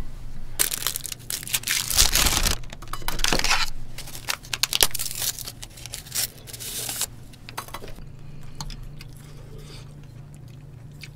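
Close-up eating sounds: spoons clinking and scraping on the dishes, and a spoonful of soft tofu stew with rice being eaten. Many short noisy bursts and clicks in the first seven seconds, then quieter, fainter clicks.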